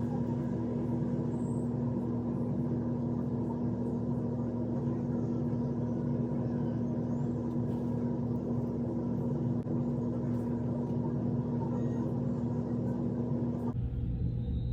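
Handheld hair blow dryer running steadily, a constant motor hum over a rush of air, drying freshly applied wig glue. It switches off abruptly about a second before the end.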